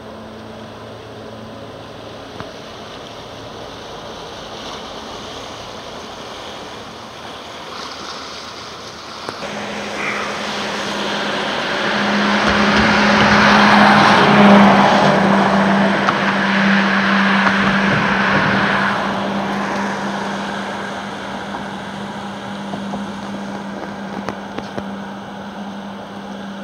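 Inland tanker ship passing: a steady engine hum with rushing, churning water that swells about ten seconds in, is loudest a few seconds later, then fades as the ship moves away.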